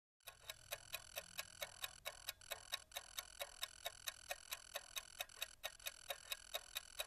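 Faint ticking-clock sound effect marking a countdown: even, sharp ticks at about four to five a second.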